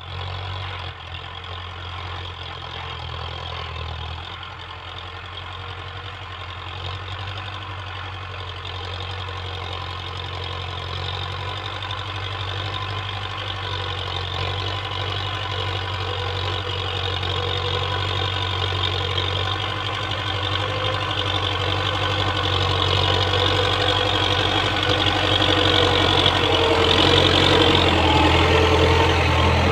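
Diesel tractor engine running steadily under load while pulling a disc plough through soil. It grows steadily louder as the tractor comes close.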